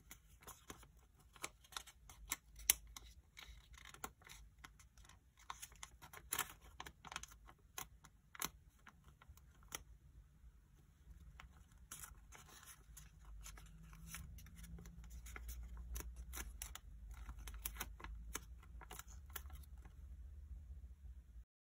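Sheet of origami paper crinkling and crackling as it is folded and creased by hand: an irregular string of small sharp crackles and clicks, faint overall, with a low rumble underneath in the second half.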